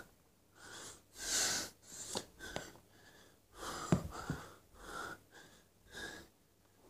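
Heavy breathing of a man doing push-ups: short, noisy breaths out and in, about one a second, with a sharp click about four seconds in.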